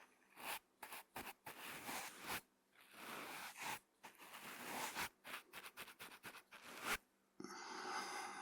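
A brush sweeping over a microphone: a run of short and longer bristly swishes with brief gaps between them, then a longer, steadier rustle near the end.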